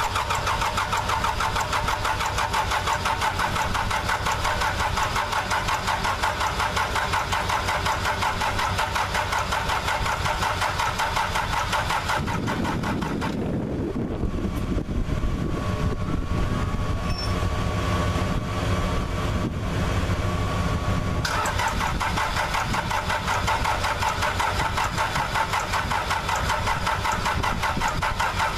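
Case 580C's freshly rebuilt diesel engine being cranked over by its starter on a first-start attempt, with a fast, even chugging. The cranking sound changes for about nine seconds partway through, then resumes.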